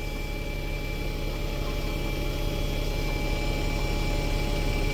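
Diesel bus engine idling steadily: a low, even rumble that grows slightly louder.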